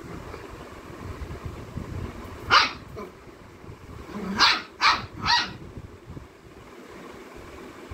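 A small black-and-tan puppy barking: four short, high-pitched yaps, one about two and a half seconds in and then three in quick succession.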